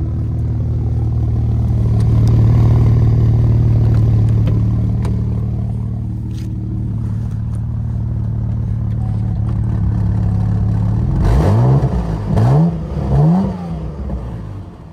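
Cadillac CTS VSport's twin-turbo V6 running with a steady deep drone, then revved up and down a few times near the end. The exhaust has an open-exhaust sound, as if there were no muffler, from a large hole where a rusted exhaust hanger weld broke away.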